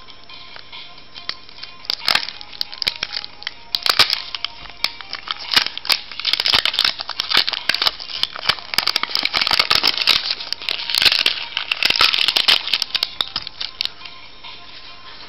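Printed plastic sleeve label crinkling and tearing as it is peeled off a drink bottle and crumpled in the hand, a dense crackling that starts about two seconds in and stops shortly before the end. Faint background music underneath.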